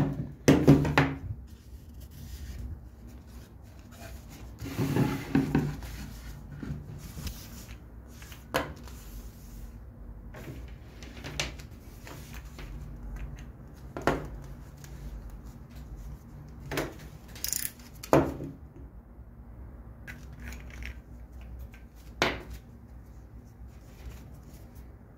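Scattered knocks and clicks of handling on a wooden tabletop: a wooden lamp piece and a plastic lamp socket with its cord being picked up, turned and set down. The loudest knocks come near the start.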